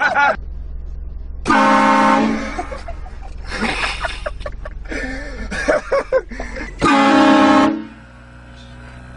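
Two loud blasts of a train horn fitted to a car, each lasting a little under a second, about five seconds apart. Voices are heard between the blasts.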